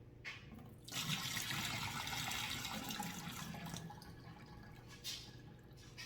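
Water running from a kitchen tap, starting about a second in, strongest for a few seconds, then easing off, with a brief splash near the end.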